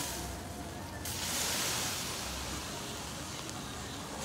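Hiss from a hot, swollen, burnt lithium-ion phone battery. It starts suddenly about a second in and eases off slowly.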